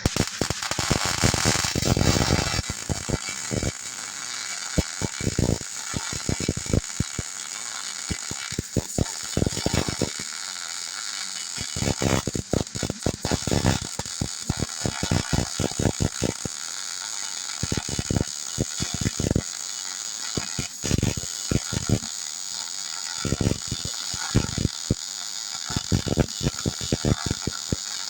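Electric arc welding a bead on the steel of a backhoe bucket: a steady crackling hiss with uneven pops and sputters, the arc striking abruptly at the start.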